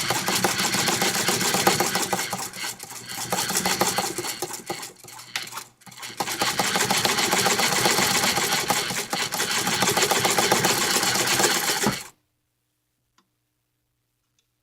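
1957 Toyota Marvel De Luxe sewing machine stitching through four layers of stiff upholstery fabric: a fast, even rattle of needle strokes that slows and almost stops about halfway, runs again, then stops abruptly about 12 seconds in.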